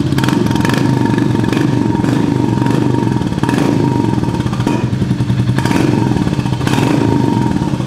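Royal Enfield Hunter 350's single-cylinder engine idling through an aftermarket Indori three-mesh silencer, with a good, even beat like the old-model Bullet.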